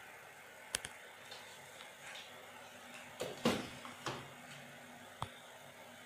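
Sharp plastic clicks and a louder sliding, scraping knock about three and a half seconds in, from the washing machine's plastic detergent drawer being handled and pulled open.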